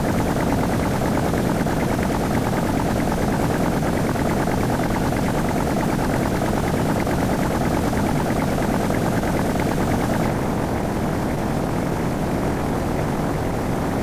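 Loud, steady rumbling noise with no clear pitch. Its upper hiss thins out about ten seconds in.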